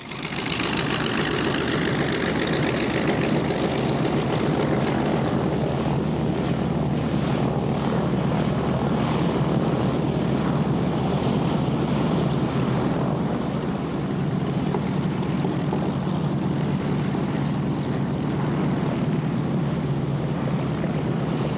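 Pratt & Whitney R-1340 nine-cylinder radial engines of North American Harvard (T-6/SNJ) trainers running steadily on the ground, the nearest propeller spinning.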